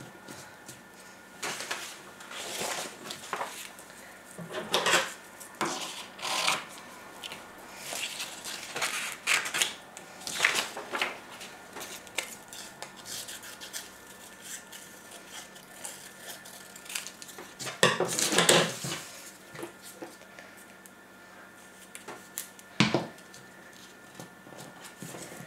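Scissors snipping through paper in a series of short, separate cuts, with paper handling between them, and a sharp click near the end.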